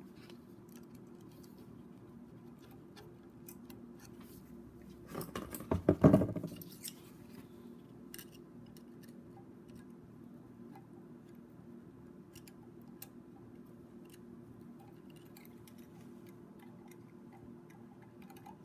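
Small metallic clicks and taps from fitting valve keepers and working a valve spring compressor on a BMW N54 cylinder head, with a louder burst of clattering about five to six seconds in, over a steady low hum.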